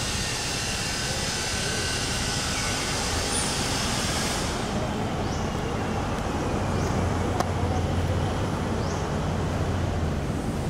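Steady background noise with a low rumble, and a few short high chirps in the second half.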